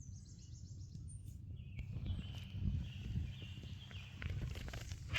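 Outdoor ambience in a garden: a bird singing in high repeated trills, over a steady low rumble with faint scattered taps.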